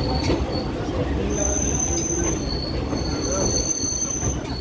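Indian Railways passenger train running along a station platform: a steady low rumble of the carriage, with thin high-pitched metallic squeals that come and go, switching between two pitches every second or so.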